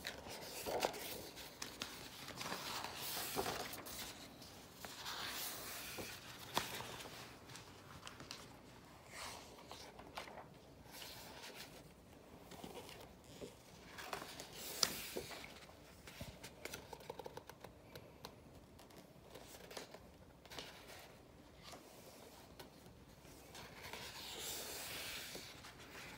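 Pages of a hardcover picture book being turned by hand: faint, intermittent paper swishes and rustles with a few sharper taps.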